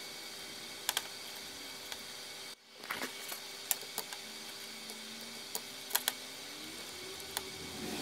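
Scattered sharp clicks of a computer mouse, some in quick pairs, over a steady hum. The sound drops out briefly about two and a half seconds in.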